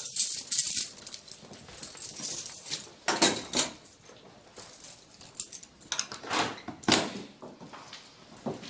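A bunch of keys jangling in several irregular bursts.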